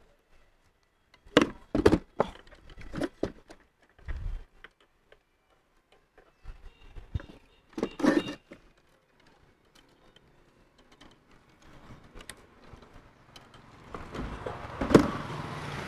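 Knocks and clunks of a finned three-phase motor stator housing being shifted and turned over by hand on a wooden box, in several short clusters. Near the end a vehicle engine hum grows louder, with one sharp knock about fifteen seconds in.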